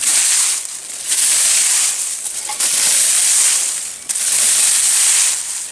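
Garden rake dragged through dry leaves and dead grass in scratchy strokes, four in a row, each about a second long.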